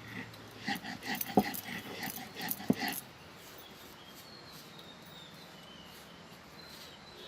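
A dog whimpering and yipping in short, repeated calls for about three seconds, with two sharp knocks among them. After that it is quiet apart from a few faint, high chirps.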